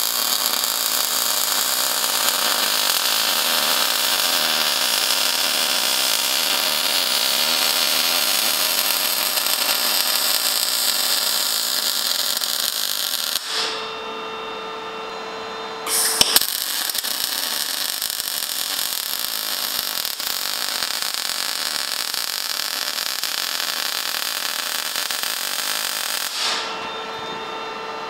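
MIG welder arc laying a bead around a notched steel tube joint, a steady hiss in two runs: one of about thirteen seconds, a pause of two or three seconds, then about ten seconds more, stopping shortly before the end. A steady hum is left in the pauses.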